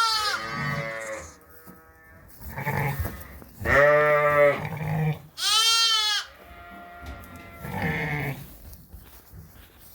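Sheep bleating, about six separate calls: some deep, some high-pitched, the loudest around four to six seconds in.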